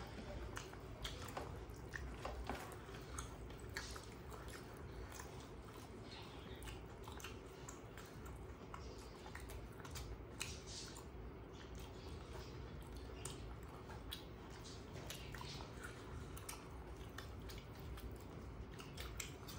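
Faint, close eating sounds: wet chewing and the squish of hands mixing rice with curry gravy on steel plates, with scattered small irregular clicks.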